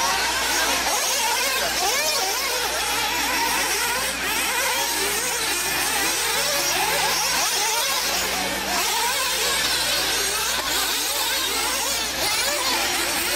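Several radio-controlled 1/8-scale 4x4 off-road buggies' small nitro engines, each winding up and easing off on its own as the cars race, making a high-pitched, constantly rising and falling whine.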